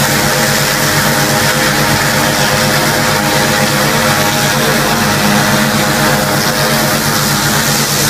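500-bar high-pressure washer running steadily: the loud hiss of the water jet blasting mud off steel road wheels over the even drone of the pump's motor.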